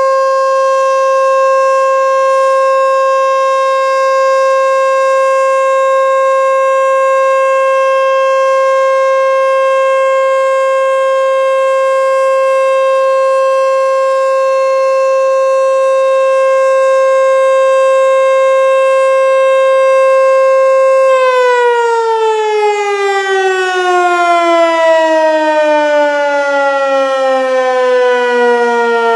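American Signal T-121 electromechanical siren sounding the steady single tone of a full-alert test signal. About 21 seconds in it cuts power and winds down, its pitch falling steadily as the rotor slows.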